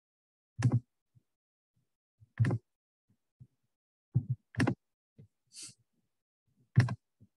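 Computer being worked to switch screen sharing: about five sharp clicks, each with a dull thump, spaced irregularly, with dead silence between them and a brief soft hiss a little after halfway.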